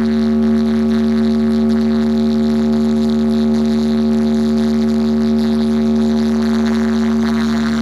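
Large DJ speaker-box stack playing one long held drone note, steady in pitch, with a deep bass tone beneath it, at high volume during a sound-system test.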